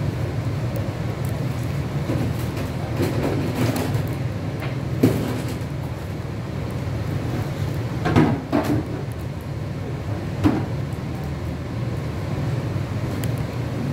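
A steady low hum with scattered rustles and light knocks from orchid stems, leaves and plastic water tubes being handled on a counter; the loudest burst of handling comes a little past halfway, followed by a single knock a couple of seconds later.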